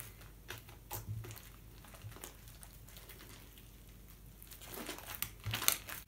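Homemade slime with wet tissue paper mixed into it, squeezed and stretched by hand: faint soft crackles and squelches, growing busier near the end.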